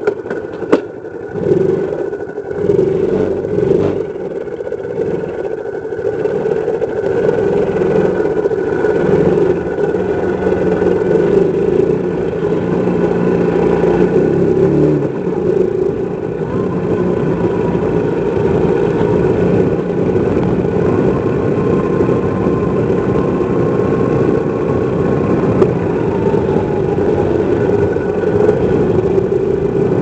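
A motor vehicle's engine running steadily as it drives along a forest road. In the first few seconds, knocks and rattles come from the rough dirt surface.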